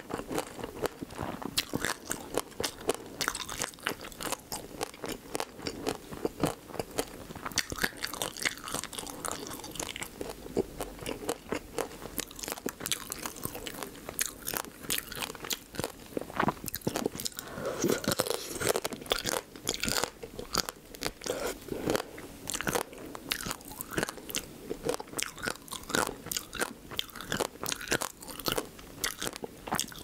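Close-miked eating of marinated raw crab: rapid, irregular crunching and wet chewing as the crab shell and meat are bitten and chewed.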